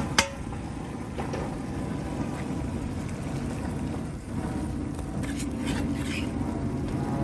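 A sharp metal clank just after the start as a stainless steel bowl knocks the rim of a cast iron pot while meat is tipped in, then a wooden spoon stirring and scraping meat and onions in the pot, over the steady low rumble of a propane burner.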